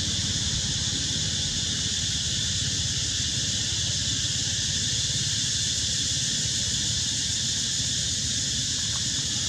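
Steady outdoor ambience: an even high-pitched hiss over a low rumble, with no animal calls or sudden sounds.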